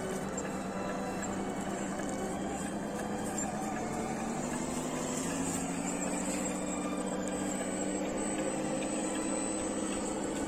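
Small electric motors whining steadily, their pitch drifting slowly up and down.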